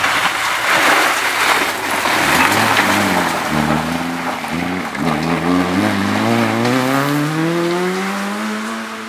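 Hatchback rally car sliding through a gravel corner: loud gravel spray and tyre noise, the engine note dipping and changing pitch through the turn. From about halfway it accelerates away, its engine rising steadily in pitch and fading near the end.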